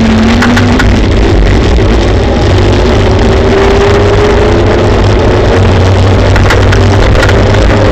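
Kaabo Wolf Warrior GT Pro electric scooter riding along a road: loud rumble and wind on the microphone, with the hub motor's whine rising slowly in pitch as the scooter gathers speed.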